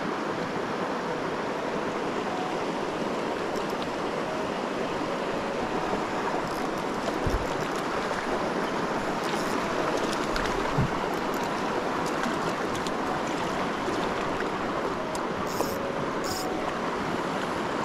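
Shallow mountain river running over a gravel bed: a steady, even rush of flowing water, with a couple of small knocks partway through.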